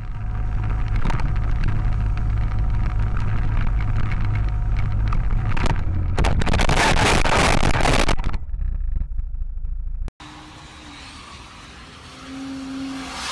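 Steady low rumble and road noise from a moving vehicle's camera, with a loud harsh noise from about six to eight seconds in. After an abrupt cut at about ten seconds, quieter traffic noise follows, with a brief low tone near the end.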